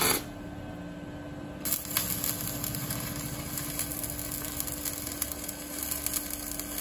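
Stick (arc) welding: the electrode crackling and sizzling steadily against the steel of a tractor leveller blade, tack-welding its bolted joints so they cannot work loose. The crackle sets in about one and a half seconds in, after a short burst of noise right at the start, over a steady low hum.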